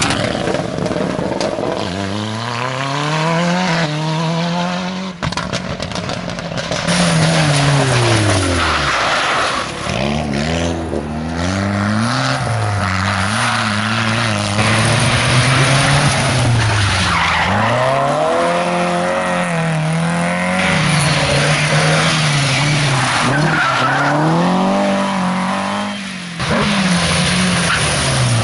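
Several rally cars taken hard through a bend one after another, their engines revving up and falling back again and again, with tyre noise as they slide on the tarmac.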